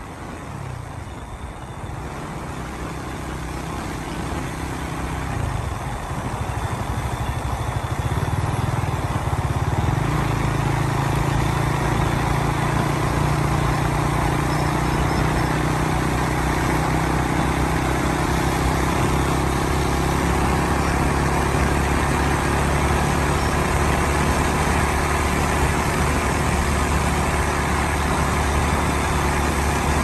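Motorcycle engine running while riding, growing louder over the first ten seconds or so and then holding a steady drone, over a steady rushing noise.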